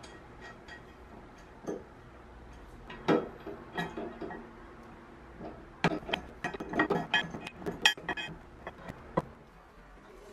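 A metal wrench clinking and clicking against the centre bolt of an IKEA DOCKSTA pedestal table as the bolt is tightened: a run of sharp metallic clicks, thickest from about three seconds in until near the end.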